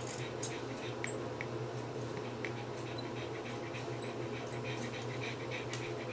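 Scissors snipping the long fur under an old small dog's belly, a run of light, quick clicks, over the dog's steady panting and a low steady hum.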